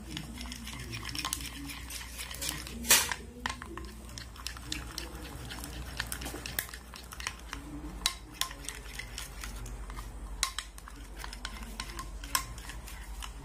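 Red-handled metal spoon stirring a thick chocolate-and-cream ganache in a glass baking dish. It scrapes and clinks against the glass in irregular knocks, the loudest about three seconds in.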